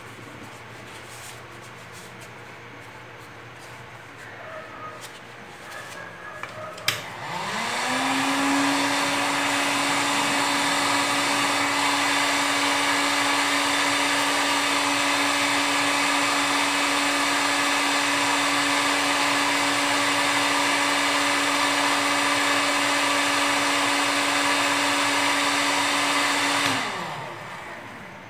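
Heat gun switched on with a click about seven seconds in, its fan spinning up to a steady hum with a rush of air that runs for about twenty seconds, then winding down as it is switched off near the end. It is blowing hot air to soften EVA foam.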